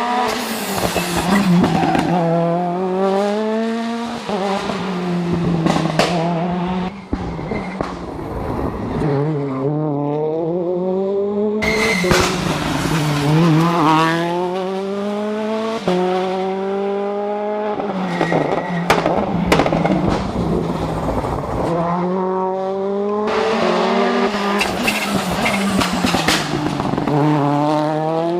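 Toyota Yaris WRC rally car's 1.6-litre turbocharged four-cylinder engine driven hard, its pitch climbing in repeated rising sweeps broken by quick gear changes, then dropping off, over several separate runs.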